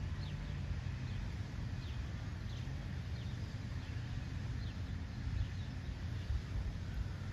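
Small songbirds chirping in the background: many short, high calls that slide downward in pitch, repeated every second or so, over a steady low outdoor rumble.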